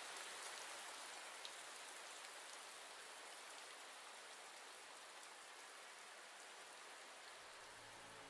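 Faint, steady rain falling. Low sustained music notes come in near the end.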